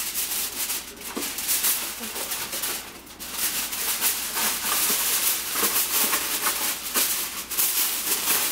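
Aluminium foil crinkling and rustling as a sheet of it is handled and spread out, an irregular run of crackles with sharper crinkles now and then.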